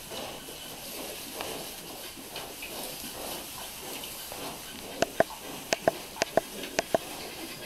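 Hampshire x Pietrain piglets suckling at the sow, grunting softly and rustling in straw. A little past halfway comes a quick run of about eight short, sharp squeaks.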